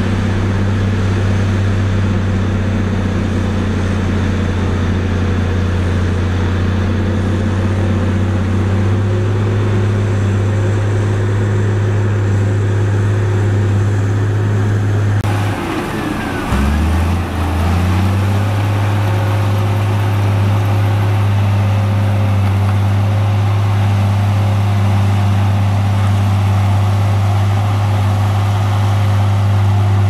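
Heavy diesel construction machinery running steadily with a low engine hum: first a Liugong single-drum road roller, then, after a sudden change about halfway through, a Komatsu D58P crawler bulldozer working in mud. The bulldozer's engine note dips and rises for a moment, then runs steady.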